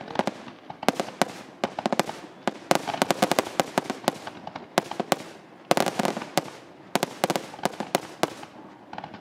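Fireworks going off as quick clusters of sharp cracks and pops, one run after another through the whole stretch.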